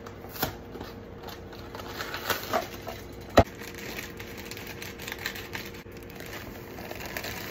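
Plastic bag of dry brownie mix crinkling as it is handled, with a sharp snip of kitchen scissors cutting it open about three and a half seconds in, then the powder being poured into a glass mixing bowl.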